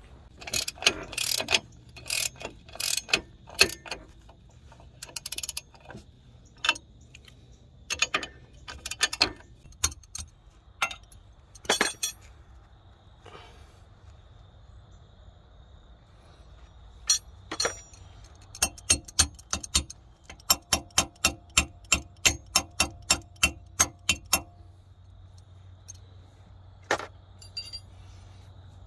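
Metal hand tools clanking and knocking on steel car parts during wheel bearing work: scattered sharp strikes, then a quick run of ringing metal blows at about three or four a second.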